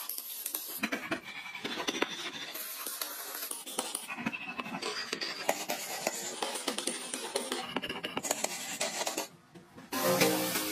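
Hand carving tools scraping and paring wood in quick, irregular strokes, a dense run of scratchy clicks. About nine seconds in it drops almost silent for a moment, and then music with plucked strings comes in.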